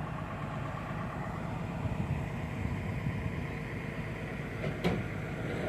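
Heavy earthmoving machine's diesel engine running steadily, with a brief sharp knock about five seconds in.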